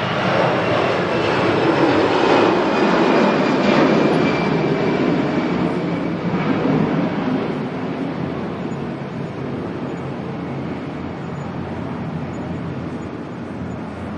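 Jet airliner engines passing by: a loud roar that swells over the first few seconds, with a whine falling in pitch, then slowly fades away.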